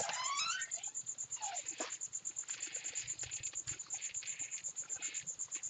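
Crickets chirping in a steady, high pulsing trill of about ten pulses a second. A short rising, whistle-like sound comes in the first half-second, with a few faint clicks.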